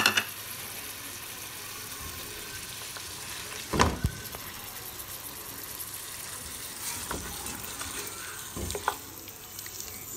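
Mutton pieces and ginger-garlic paste sizzling in hot oil in a metal pot, a steady frying hiss. A spatula knocks and scrapes against the pot a few times, loudest about four seconds in.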